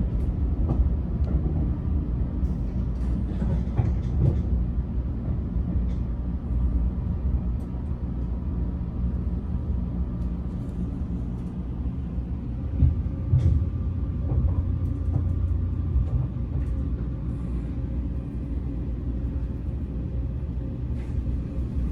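Steady low rumble inside a Keisei Skyliner train car, with a few faint clicks.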